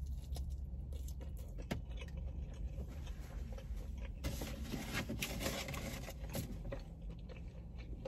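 A person chewing a mouthful of barbecue rib meat with soft wet mouth sounds and small clicks, busier for a couple of seconds past the middle, over a steady low hum.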